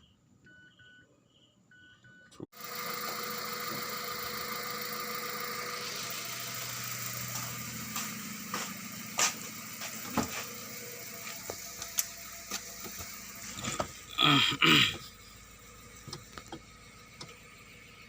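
A few short electronic beeps, then a Mazda 3's engine cranking on the starter for about eleven seconds without catching: the car cranks but won't start. Near the end comes a brief loud burst with a bending pitch.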